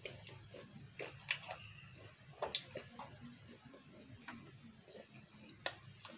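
Close-up eating sounds: chewing with wet mouth clicks and smacks, a few sharper clicks standing out, over a low steady hum.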